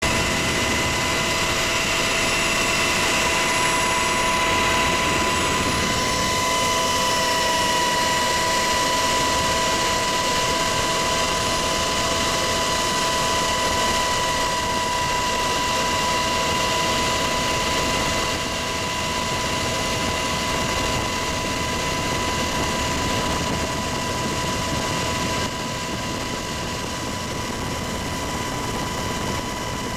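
UH-60 Black Hawk helicopter heard from inside the cabin in flight: steady rotor and turbine noise under a constant high-pitched whine. The whole sound drops slightly in level twice, near the middle and near the end.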